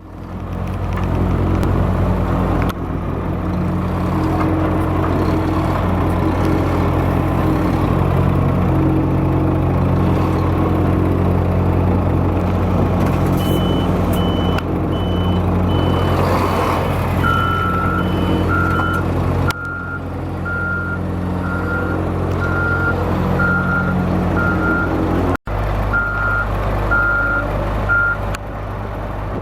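Heavy diesel engines of a dump truck and a Caterpillar wheel loader running steadily under load during a recovery from sand. Reversing alarms beep over them: a higher-pitched one about halfway through, then a lower one that keeps beeping evenly through most of the second half.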